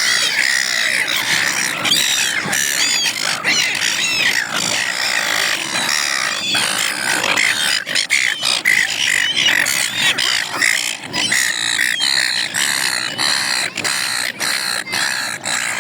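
A flock of gulls calling, with many short squawks overlapping one another throughout.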